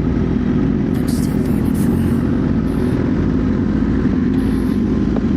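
Motorcycle engine running at a steady pitch, with no revving.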